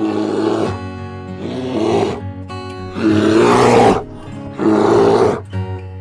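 Black bear calling: four loud, rough calls, each under a second, about a second and a half apart, over background music.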